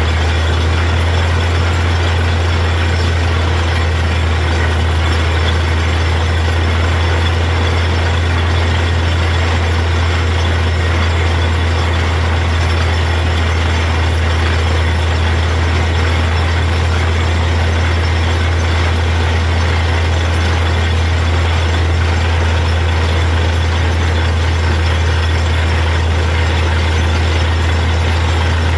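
Truck-mounted borewell drilling rig running steadily: a deep, even engine drone, under a constant hiss and splash of water and cuttings blown up out of the borehole.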